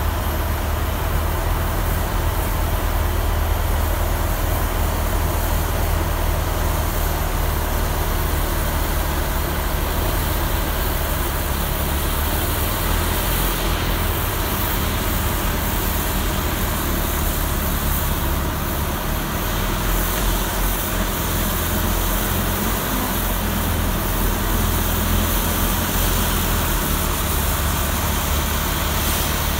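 Vohl VL-350 loader-mounted snow blower, driven by its 350 hp John Deere diesel engine, running steadily while throwing snow, together with the diesel engine of the Cat 950E wheel loader carrying it. A continuous deep engine drone with a rushing hiss of snow over it.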